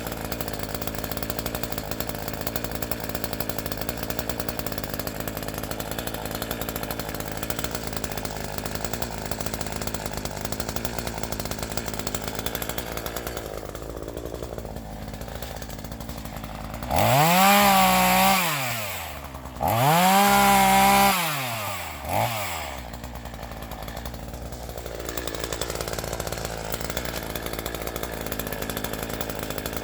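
A chainsaw idling steadily. About halfway through it is revved twice, each time rising and falling in pitch over about two seconds, then blipped once more briefly before it drops back to idle.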